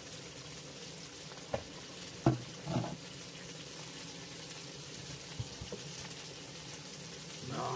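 Dried yellow croaker (gulbi) sizzling in an oiled pan: a steady frying hiss. Two sharp knocks come about one and a half and two seconds in, the second the loudest.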